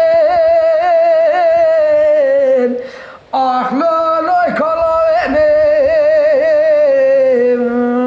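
A singer in Kurdish dengbêj style holding long, wavering, ornamented notes, with no instrument heard. The line breaks off briefly about three seconds in, then a second long phrase begins.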